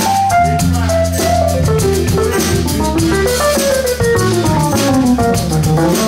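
Live jazz band playing an instrumental passage: a lead instrument runs down in quick single notes and climbs back up near the end, over bass and drum kit.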